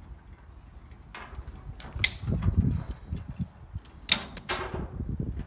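Pliers working on a shipping container's door lock bar: two sharp metallic clicks, about two seconds apart, over low thumping handling noise.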